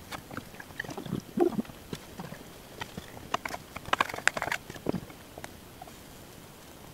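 Wooden spatula knocking and scraping against a nonstick frying pan as a pancake is turned: irregular hollow knocks, in a cluster about a second in and a busier one around four seconds in.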